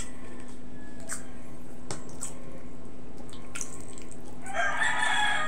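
A rooster crowing once near the end, a long pitched call. Before it, a few faint clicks of eating by hand over a steady low hum.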